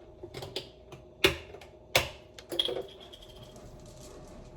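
Kitchen handling sounds: a handful of sharp knocks and clicks, the loudest a little over a second in and again at two seconds, then a cluster with a brief metallic ring, as containers and a pot are handled at the stove. A steady low hum runs underneath.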